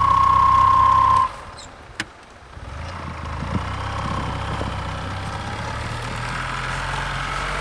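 Belt-driven gas golf cart engine working to push the cart through deep snow. A loud steady high whine stops about a second in and the engine eases off, a click follows, then the engine note slowly builds and holds as the cart creeps forward.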